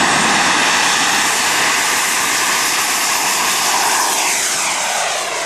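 Model jet turbine (Evo-Jet Booster 160 Plus) running at full power on a radio-controlled King Cat jet as it takes off: a loud roar with a steady high whine. About four seconds in, the whine falls in pitch as the jet flies past.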